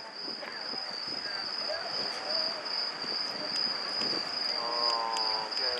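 A cricket trilling steadily and high-pitched, over a low murmur of crowd voices.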